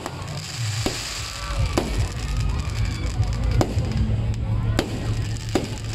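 Aerial fireworks going off: several sharp bangs and pops, roughly a second apart, over background music.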